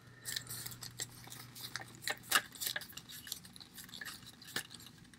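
Irregular light clicks, taps and rustling of a plastic doll being handled as a pair of shorts is worked up its legs.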